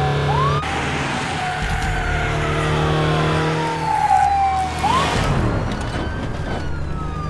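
Police car siren wailing over a steady engine hum. Each wail falls slowly in pitch for about four seconds, then sweeps quickly back up, twice.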